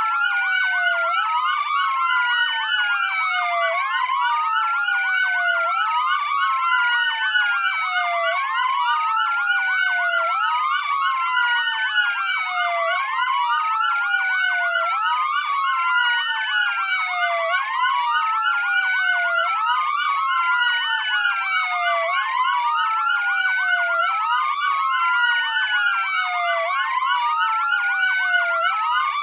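Electronic emergency-vehicle siren wailing, its pitch rising and falling about once every two seconds, with other siren tones sweeping faster over it.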